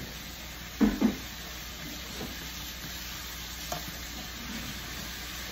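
Chicken frying in hot oil, a steady sizzle, with a short louder sound about a second in.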